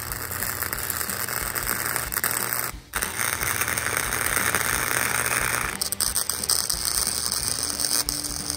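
Arc welding on steel: the welding arc crackles and sputters steadily, throwing spatter. The arc breaks off for a moment about three seconds in, then strikes again and runs on.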